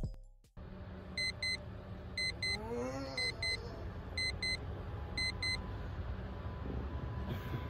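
Electronic alarm beeping in quick double beeps, one pair about every second, five pairs in all, then stopping a little past halfway through.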